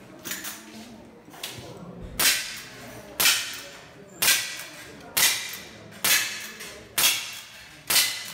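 CO2 lever-action rifle firing seven shots about a second apart, each a sharp crack that dies away quickly, with a few fainter clicks in the first second and a half.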